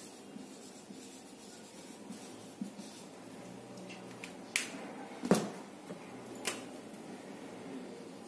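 Marker pen writing on a whiteboard, faint scratchy strokes, then three sharp clicks in the middle, the loudest about five seconds in.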